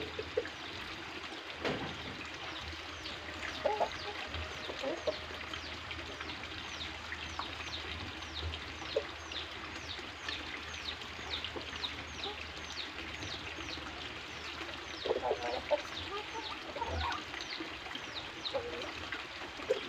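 Red junglefowl roosters clucking now and then, in short runs of a few clucks, over a steady series of high, quick falling chirps about twice a second.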